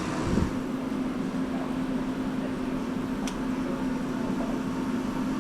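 A steady mechanical hum on one low tone, like a fan or heater motor running, with a single faint click about three seconds in.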